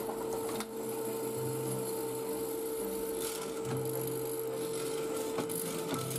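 Woodworking machine running with a steady motor hum while its bit cuts into wood, with a few short bursts of cutting noise as the work is fed by the handwheel.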